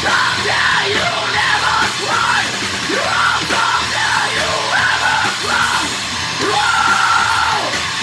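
Live heavy rock band playing loud: electric guitar, bass guitar and drum kit, with shouted, yelled vocals over them.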